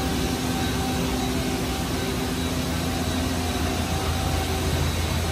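Steady machine-shop hum: a low drone with a few steady tones over a constant hiss, unchanging throughout.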